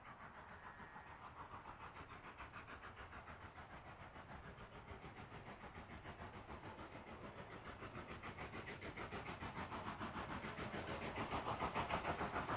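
Steam locomotive working along the line, its exhaust beating in a fast, even rhythm of about six chuffs a second, growing steadily louder as it approaches.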